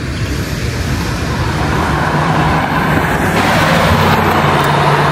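1976 Chevrolet Corvette L82's 350 cubic-inch V8 running as the car drives up and past, growing louder as it nears.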